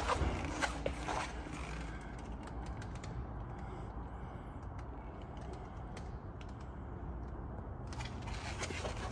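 Quiet room tone with a low steady hum and scattered faint clicks and taps.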